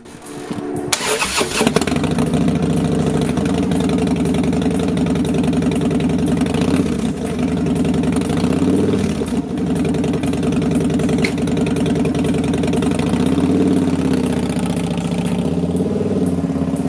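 2014 Harley-Davidson Fat Bob's Twin Cam 103 V-twin engine started about a second in, catching at once and then idling steadily to warm up. It pulls away near the end.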